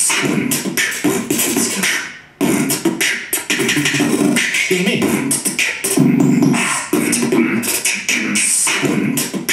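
Beatbox-style vocal sample played back from a Yamaha Motif workstation through the PA. It is time-stretched to a different tempo while its pitch stays the same, and it breaks off briefly about two seconds in.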